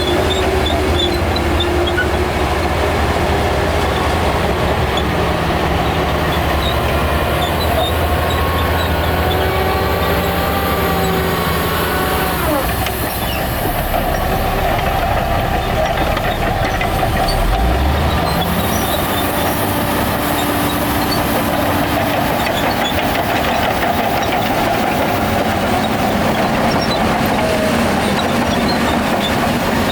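Shantui crawler bulldozer working: its diesel engine runs under a constant clatter and squeal of steel tracks. The engine eases off about twelve seconds in and revs back up near eighteen seconds.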